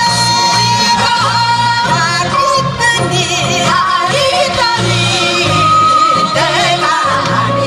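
A group of women singing into microphones over an instrumental backing. The voices slide between notes with a wide, wavering vibrato, above steady held bass notes.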